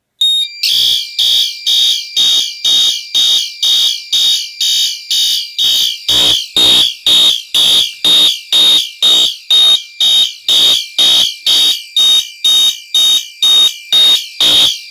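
Fire alarm horns (a System Sensor SpectrAlert Advance P2WA-P, a GE/EST 682-1C mini horn and a Wheelock MIZ) sounding together in march time: loud, high-pitched blasts at about two a second, starting about half a second in. This is a general alarm set off from a manual pull station on a Potter PFC-6006 fire alarm panel.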